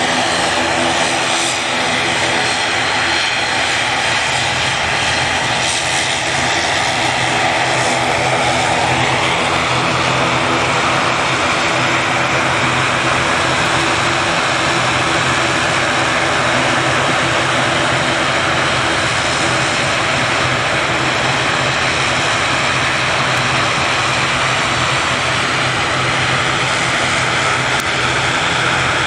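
ATR 72-600's twin Pratt & Whitney Canada PW127M turboprop engines running as the airliner taxis: a steady propeller drone under a high turbine whine that rises slightly about nine seconds in.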